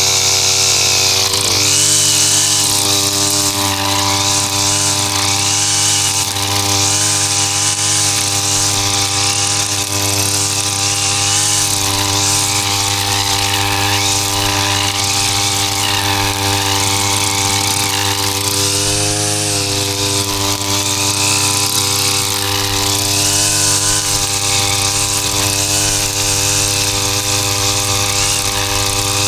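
Two-stroke brush cutter with a nylon string head running steadily at high throttle. Its pitch dips briefly and recovers about two-thirds of the way through.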